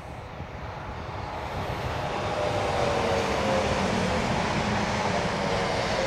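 Greater Anglia Class 745 Stadler FLIRT electric multiple unit approaching and passing at speed. It grows louder over the first couple of seconds, then holds, a steady rush with a whine that slides slightly lower in pitch as it goes by.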